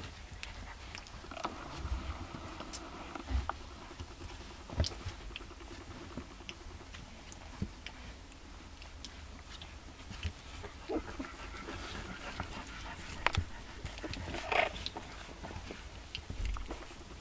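A litter of young puppies playing and mouthing each other: small squeaks and whimpers over scuffling on the blanket, with one louder squeal about three-quarters of the way through.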